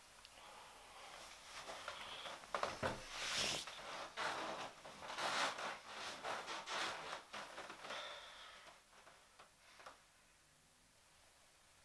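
Bedcovers rustling in a string of irregular, scratchy bursts as a person shifts and sits up in bed, fading to quiet room tone near the end.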